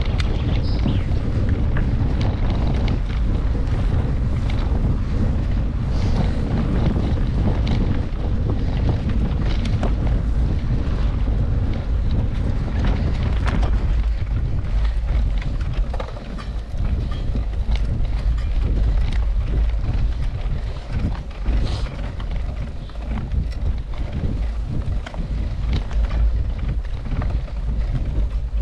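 Wind buffeting the microphone of a camera riding along on a mountain bike, with frequent clicks and knocks from the bike over rough ground. The rush eases a little about halfway through.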